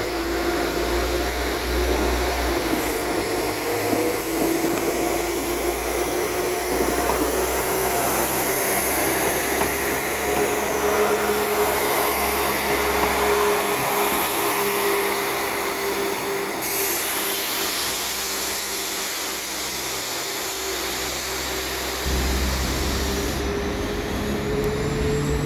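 Northern Class 195 diesel multiple unit running, a low engine throb under a steady whine that slowly rises in pitch.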